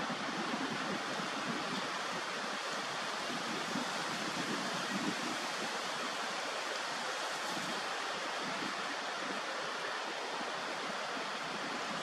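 Steady rush of flowing water, an even hiss with no calls or knocks standing out.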